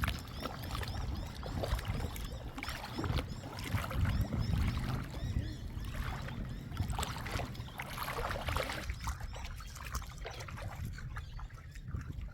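Lake water splashing and sloshing as someone swims, in irregular splashes.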